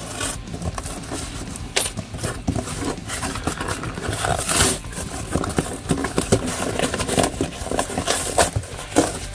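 Cardboard shipping box being torn open by hand: the cardboard crackles, rips and scrapes, with scattered knocks and clicks as the flaps are pulled apart. The loudest tearing comes about halfway through.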